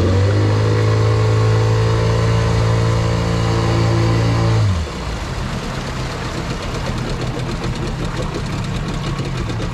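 Small outboard motor pushing a boat along: its hum rises as the throttle opens at the start and holds steady, then eases off about halfway through, leaving a lower engine note under the steady rush of water and wind.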